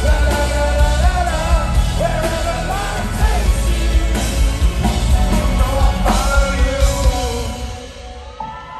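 Live rock band playing: a lead singer's voice over loud drums and heavy bass. The music drops away near the end.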